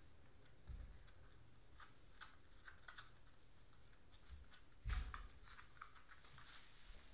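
Faint, scattered light clicks and scuffs of young beagle puppies' paws moving about on carpet and paper pads, with one louder thump about five seconds in.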